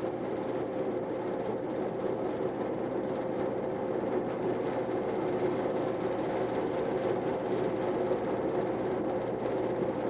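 Film projector running: a steady whirring hum with two steady tones, unchanging throughout.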